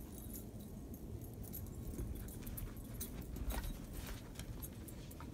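Footsteps crunching through fresh snow: an uneven run of short, crisp crunches, with a stronger one about three and a half seconds in, over light metallic jingling.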